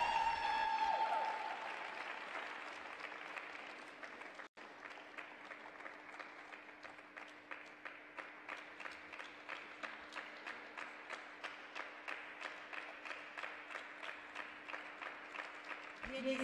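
The last note of the music fades in the first second, then an arena audience applauds. The clapping settles into rhythmic clapping in unison, about two to three claps a second.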